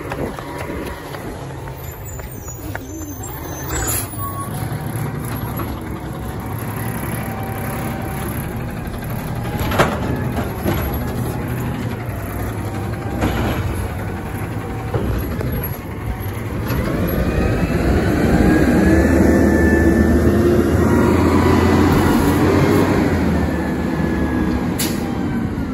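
Automated side-loader garbage truck's engine running as it pulls away down the street, with several short air-brake hisses. Its engine note climbs and grows louder from about two-thirds of the way in, as the truck accelerates.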